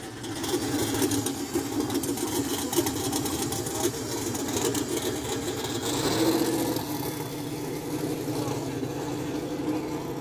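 Drag-race pickup truck's engine idling steadily, a little louder around six seconds in and then settling lower.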